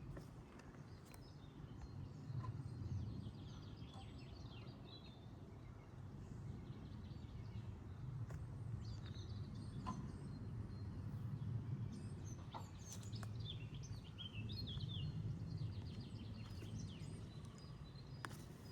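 Small birds chirping in short, high calls, thickest in the second half, over a low steady rumble that swells and fades, with a few soft clicks.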